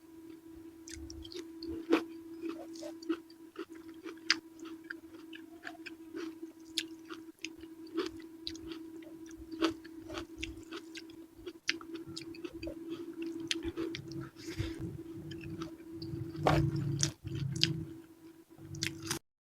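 Close-miked chewing of purple eggplant with chili sambal: a stream of soft wet mouth clicks and smacks, heavier chewing near the end, over a steady low hum. The sound cuts off suddenly just before the end.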